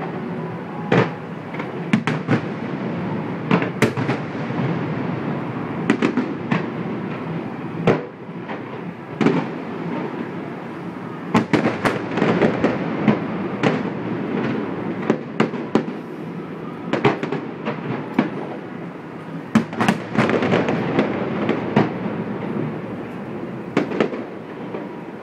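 Fireworks display: dozens of sharp bangs at irregular intervals, sometimes several in quick succession, over a continuous rumble and crackle of further bursts.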